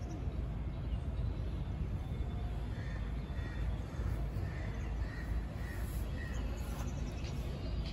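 A crow cawing repeatedly, a string of short harsh calls in the middle of the stretch, over a steady low rumble.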